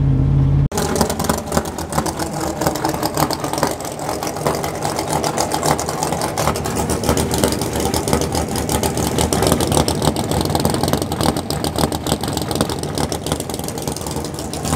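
Engine running at idle, a rapid pulsing exhaust beat that holds steady throughout.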